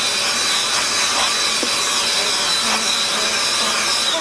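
Handheld electric dust vac used as a blower, its motor running at full speed with a steady high whine over rushing air as it blows dust out of the opened laser printer. Near the end it switches off, and the whine drops away in pitch.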